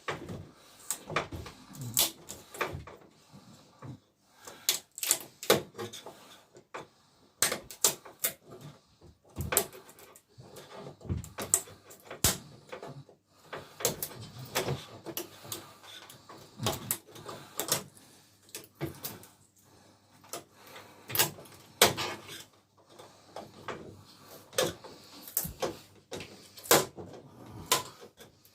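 Irregular clicks, taps and light knocks of hand work on a flat-screen TV's insides, easing its LED backlight strips off the back plate.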